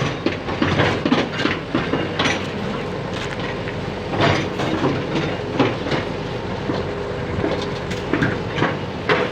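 Excavator running steadily while working, with irregular clanks and knocks over the engine noise.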